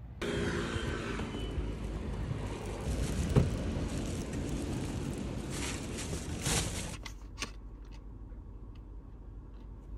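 Outdoor traffic noise beside a parked car, with a plastic shopping bag being handled and a single sharp thump about three seconds in. About seven seconds in it changes to the quieter inside of the car, with a few small clicks of snack packets being handled.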